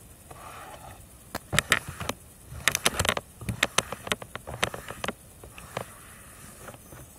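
Fingernails scratching and tapping on a hard surface close to the microphone: irregular clusters of sharp scratches and clicks, made as the sound of something scratching to get into the cabin.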